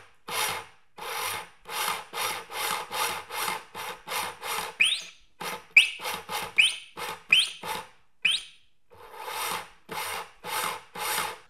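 Brushless drive motors and gearboxes of a combat robot run in short bursts about twice a second from the radio throttle, each burst a rasping whir, several with a short rising whine. This is typical of the motors and speed controllers not syncing when pushed too fast.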